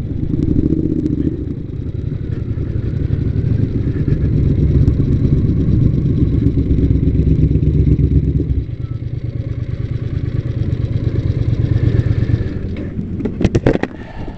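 Triumph America parallel-twin motorcycle engines running at low speed and idling as the bikes pull up, a deep steady rumble that drops a step about eight and a half seconds in. Near the end the rumble fades and a quick run of clicks and knocks sounds.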